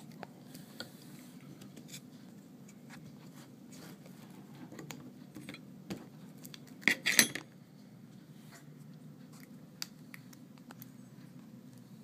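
Scattered small clicks and taps of hand tools and parts while an iPad 2's LCD is freed and lifted out, with a louder brief clatter about seven seconds in. A low steady hum runs underneath.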